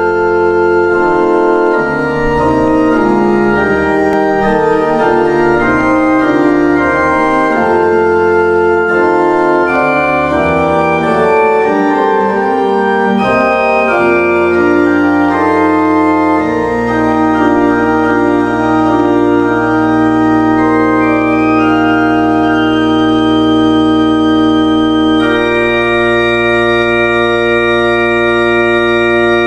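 Organ music: several voices moving through quick-changing notes, then about halfway through it settles onto a long held chord over a deep sustained pedal note, with higher notes added near the end.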